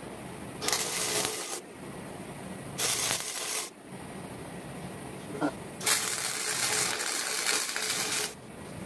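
Wire-feed welder laying welds on steel tubing, crackling and sizzling in three bursts: two short tacks of about a second each, then a longer bead of about two and a half seconds near the end.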